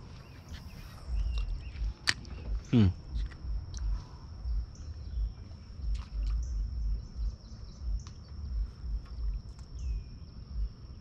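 Outdoor lakeside ambience: wind buffeting the microphone in uneven low gusts, with a steady thin high whine, a few light clicks and faint bird chirps.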